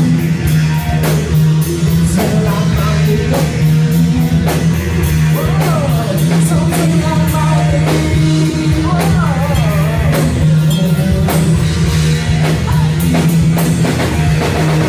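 Live band playing loud rock music: a drum kit keeping a steady beat under electric guitar and bass, with a voice singing over it in places.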